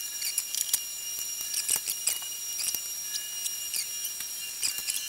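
Scattered clicks and knocks of a motorcycle's plastic tank-cover and side panels being unscrewed and lifted off by hand, over a steady high-pitched whine.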